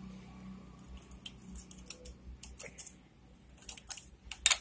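Light metallic clicks and clinks of a motorcycle timing chain and camshaft sprocket being worked into place by hand, the stage at which the valve timing is set with the piston at top dead centre. The clicks are sparse at first, with a few sharper ones near the end.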